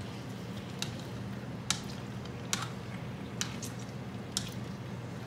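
Grapes being crushed in a metal pan with a hand masher to press out their juice: wet squishing, with about six sharp clicks of metal striking the pan, roughly one a second.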